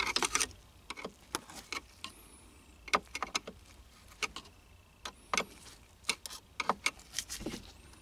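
A screwdriver tip clicking and tapping against the plastic tabs of a gear shifter's park detect switch as they are pressed to pop the switch out. The clicks are sharp and irregular, some coming in quick clusters.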